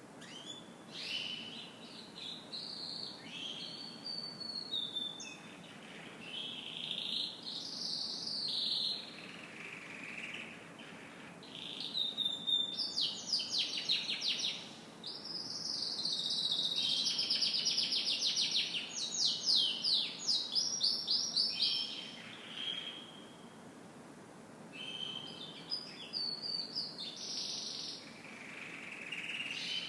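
Domestic canary singing: varied phrases of chirps and whistles broken by short pauses, with a long, loud, fast trill in the middle.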